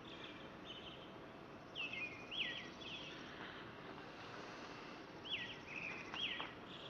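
Short chirping calls, each a quick falling sweep, coming in small clusters a few times over a faint steady hum.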